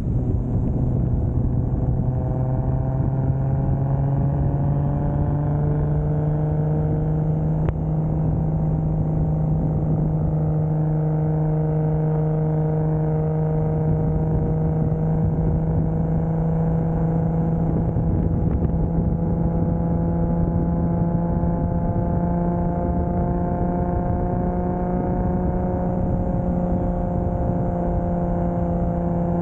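Single-turbo 2JZ inline-six of a 1995 Toyota Soarer running steadily while cruising, its note rising slowly as the car gathers a little speed.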